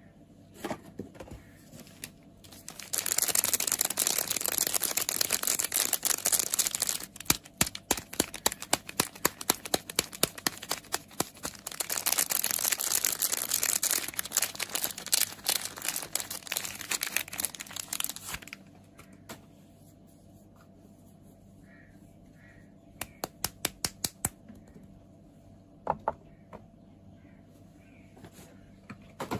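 Soap packaging crinkling and tearing as it is unwrapped, in two long stretches. Between them come runs of quick, sharp taps, about four a second, and a short flurry of taps later on.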